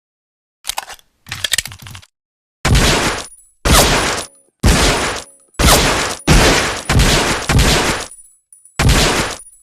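M1911A1 .45 ACP pistol: a few metallic clicks of the action being handled, then eight shots fired about a second apart, each with a short echoing tail.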